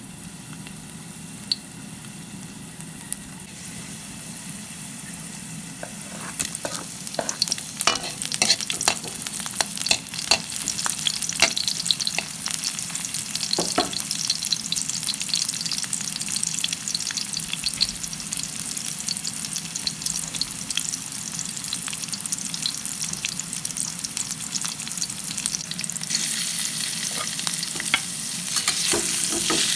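Food sizzling as it fries in a pan, with a utensil clicking and scraping against the pan as it is stirred, most busily in the first half. The sizzle builds after a few seconds and grows louder again near the end.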